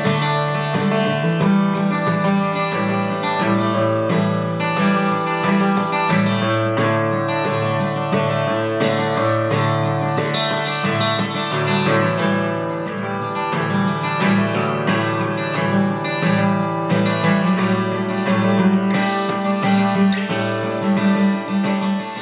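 Acoustic guitar music, picked and strummed at a steady level, beginning to fade out at the very end.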